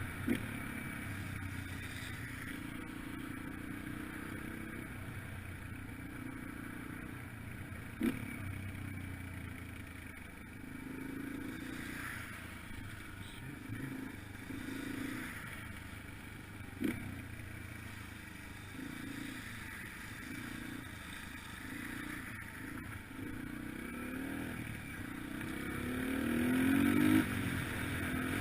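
Yamaha TT-R125LE dirt bike's single-cylinder four-stroke engine running under way, its pitch rising and falling with the throttle and climbing as it accelerates near the end. A few sharp knocks are heard, about once near the start, once about eight seconds in and once about seventeen seconds in.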